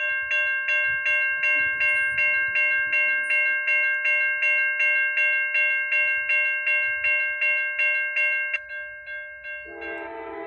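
Railroad crossing bell ringing at about three strikes a second while the gate arm comes down, dropping much quieter about eight and a half seconds in. Near the end a CSX locomotive's horn starts sounding, a chord of several notes.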